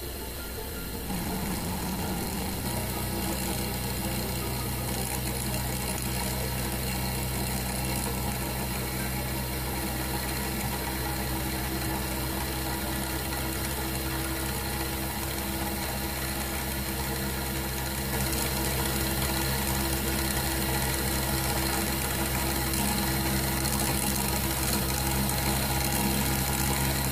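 Model Hero's engine (aeolipile) spinning fast on its pivot as steam jets from its boiler: a steady whirring hum with a hiss over it, a little louder from about two-thirds of the way in.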